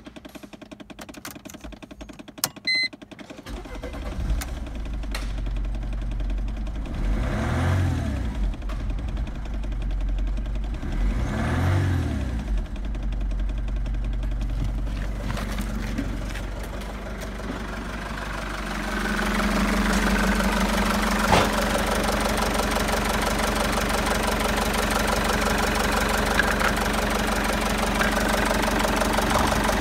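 Mercedes-Benz OM611 2.2-litre four-cylinder common-rail diesel starting after a few clicks and settling into idle. It is revved briefly twice, the revs rising and falling each time, then idles steadily, heard louder and closer from the engine bay in the second half.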